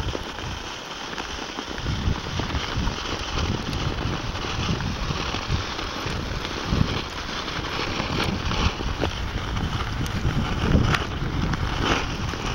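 Wind buffeting the microphone over a steady scraping crunch of ice skates gliding on snow-covered lake ice, with a few sharp clicks near the end.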